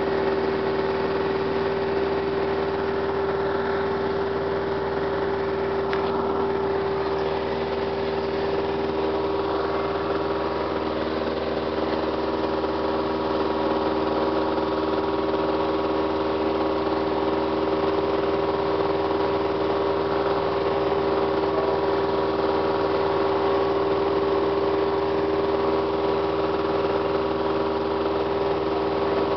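Piper Cherokee 140's four-cylinder Lycoming engine and propeller running steadily in flight, heard from inside the cabin as a constant drone at an unchanging pitch.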